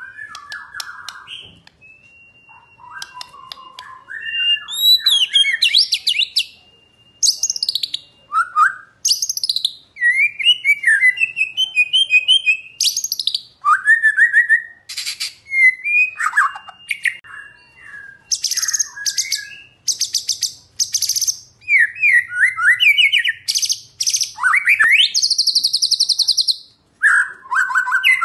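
White-rumped shama singing a long, varied song: clear whistled phrases that slide up and down, rapid high trills and buzzy notes, with a few long steady whistles, broken by short pauses.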